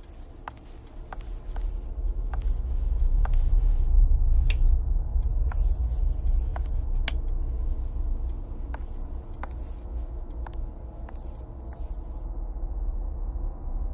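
A low rumbling drone that swells over the first few seconds and then holds, with sparse sharp ticks roughly once a second.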